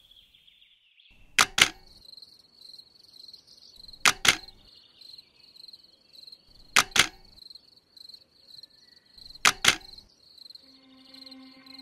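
Crickets chirring in a steady high trill. A pair of sharp clicks comes about every two and a half seconds, four times. A low held musical tone comes in near the end.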